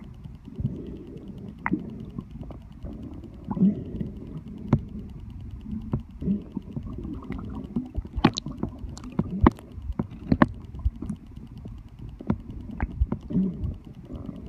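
Underwater sound: a steady low rumbling and gurgling of water, with short low grunts and scattered sharp clicks and pops that come thicker in the second half.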